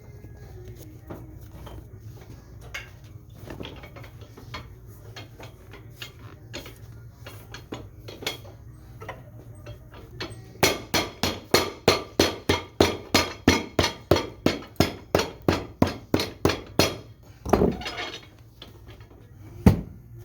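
Hammer striking a boot in a fast, even run of about four blows a second for some six seconds, after a stretch of small handling clicks; two heavier single knocks follow near the end. It is typical of a cobbler hammering glued leather parts down to set them.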